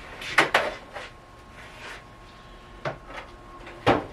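Tools being fetched from a toolbox: a drawer opening and closing and small hand tools being handled. It comes as a few separate sharp knocks and clatters, with two near the start and the loudest near the end.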